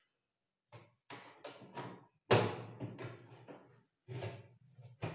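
Metal roller-shutter slats and cabinet frame clattering and knocking as the shutter is handled and fitted, a series of uneven knocks with a low rattle, the loudest about two seconds in.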